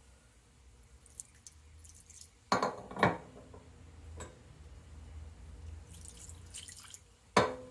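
Greasy metal vise parts being cleaned by hand with solvent: liquid dripping and splashing, with two sharp metallic clinks that ring briefly about two and a half and three seconds in.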